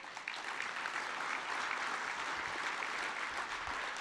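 Audience applauding steadily, the clapping beginning to die down near the end.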